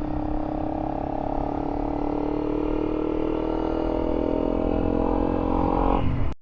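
Honda CRF300L Rally's single-cylinder engine running under way at road speed, its pitch rising slowly, with wind noise. The sound cuts off suddenly near the end.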